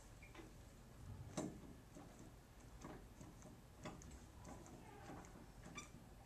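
Plastic CPR training manikin clicking under hand chest compressions: faint short clicks at a steady pace of about two a second, starting about a second in.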